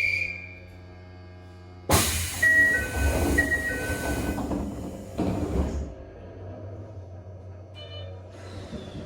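Doors of a stopped Toei 5300 series train closing: a sudden rush of noise, a two-tone chime alternating four times, then the doors shutting with a heavier burst about three seconds later.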